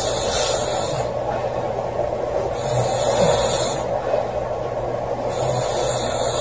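A woman snoring in her sleep: three noisy, hissing breaths, about two and a half to three seconds apart, over a steady background hiss.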